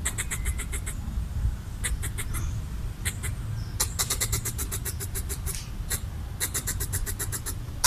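Red squirrel chattering in rapid trains of sharp, high clicks, about four bouts with short pauses between. This is a territorial threat call meant to scare off what it takes for an intruder.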